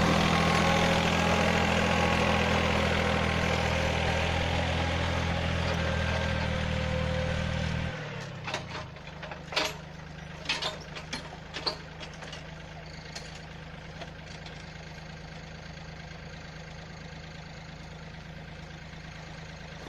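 Yanmar 1145 tractor's diesel engine running steadily at high throttle, then throttled back to a quieter idle about eight seconds in. A few sharp knocks and clicks follow, over the idling engine.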